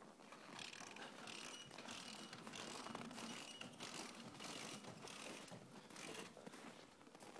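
Faint footsteps crunching in snow, a step every half second or so.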